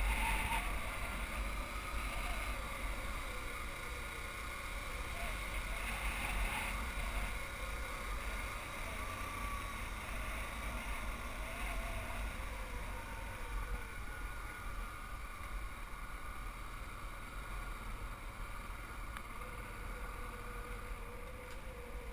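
Motorcycle engine running steadily, with wind rumbling on the microphone.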